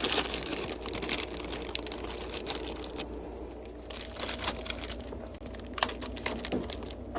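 Plastic snack packages crinkling and rustling as they are handled, with many irregular small clicks and knocks.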